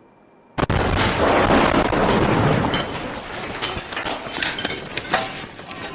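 An explosion: a sudden loud blast about half a second in, followed by a dense rumble that thins out into scattered crackles and pops.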